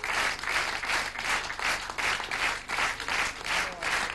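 Theatre audience clapping in unison, a steady rhythm of about two to three claps a second: rhythmic applause calling for an encore.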